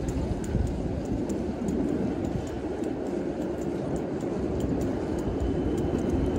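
A steady low rumble of city street traffic, with light regular ticks about three a second, typical of footsteps.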